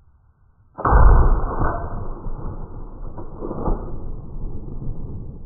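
A .223 Remington rifle shot from an AR-15 about a second in. It is a sudden low, muffled boom with no sharp crack, rumbling on and fading slowly over the next four seconds.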